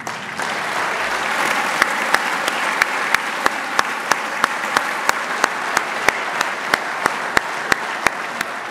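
Audience applauding in a large hall, with one pair of hands clapping sharply close to the microphone about three times a second. The applause fades out near the end.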